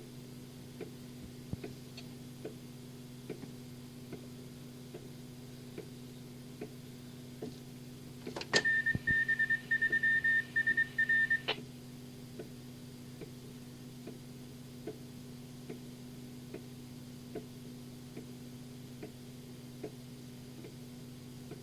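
Radio-scanner recording of an open phone channel: a steady electrical hum with a light tick a little faster than once a second. Near the middle, a high electronic beeping tone pulses rapidly for about three seconds.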